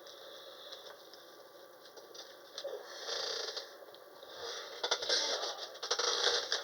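Hands handling and opening small packaging: rustling with a run of sharp clicks and crackles, thickest near the end.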